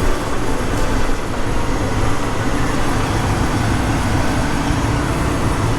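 Half-ton pickup truck running under load while pulling a header trailer in four-wheel-drive low, a steady low rumble of engine and drivetrain.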